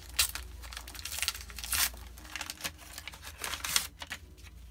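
Small kraft paper bag being opened by hand, the paper crinkling and rustling in a handful of short bursts.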